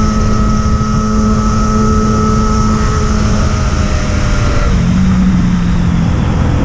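Yamaha XJ6's inline-four engine running steadily, its note stepping down to a lower pitch about three-quarters of the way through.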